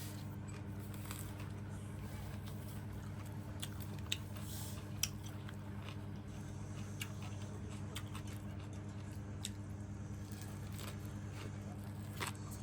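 A person chewing and biting food (bún đậu mắm tôm: rice vermicelli and fried tofu), with a few sharp clicks over a steady low hum.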